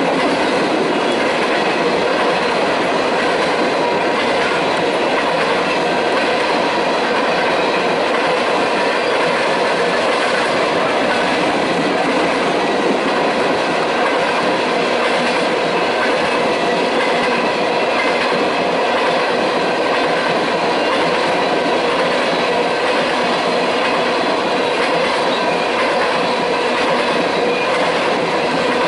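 Freight train of tank cars rolling past: the steady clatter and rumble of steel wheels on rail, with faint steady ringing tones from the wheels and rail running through it.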